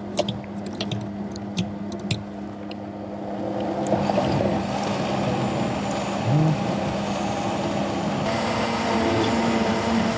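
A countertop blender starts about four seconds in and runs steadily, puréeing a tomato mixture with a whirring, liquid churn. Before it starts there are a few light clicks of the jar and lid being handled.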